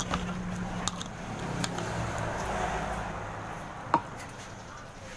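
Metal fork and spoon clicking and scraping against a bowl of noodles while eating, a few sharp clicks spread through, the loudest about four seconds in.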